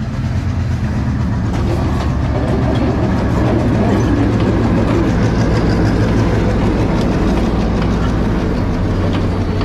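Diesel locomotive passing close by with its engine running in a loud, steady low drone, hauling wooden passenger carriages, with faint clicks of the wheels on the rails.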